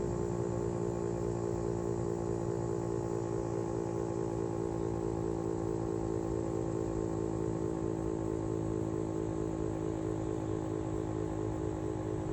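Federal Signal STH-10 single-tone civil defense siren sounding at a steady pitch, its tone wavering slightly and evenly throughout.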